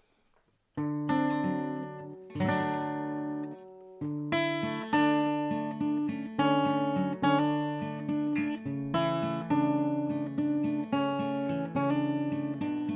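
Acoustic guitar strummed in chords, starting about a second in: two separate ringing strums, then a steady strumming rhythm of roughly one strum a second.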